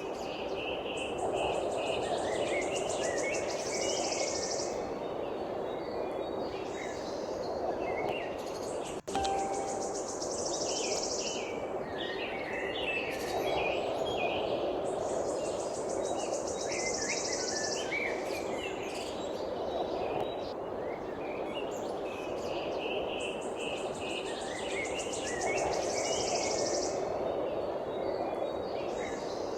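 Birds chirping and calling, with an insect trilling in repeated stretches of a few seconds over a steady background hum. There is a brief dropout about nine seconds in.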